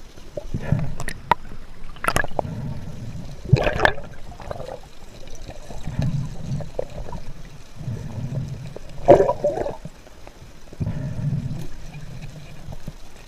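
A spearfisher breathing through a snorkel at the surface, a slow in-and-out every few seconds. Water gurgles and sloshes around it, with a few sharp clicks and one louder splash about nine seconds in.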